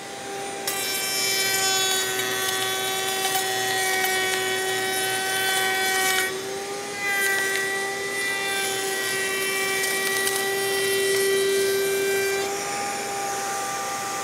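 Router table running with a 1/4-inch beading bit while a 5/8-inch board is fed past it: a steady high motor whine with a rough cutting noise over it. The cutting noise drops out for under a second about six seconds in, then thins out about two seconds before the end while the motor keeps running.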